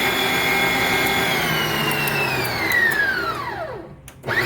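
Stand mixer's 660 W electric motor running at its top speed with a steady whine, then switched off and winding down, the whine falling steadily in pitch until it stops. Near the end the motor is switched on again briefly, its whine rising and at once falling off.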